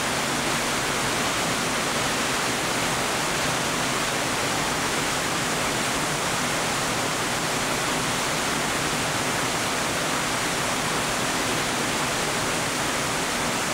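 Ennistymon Cascades, a wide, low stepped waterfall on the Cullenagh River, in flood after heavy rain: brown floodwater pouring over the rock ledges with a steady, even rush of water.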